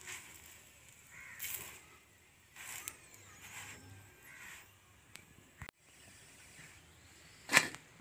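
Crows cawing, a run of short harsh caws about a second apart, with one louder caw near the end.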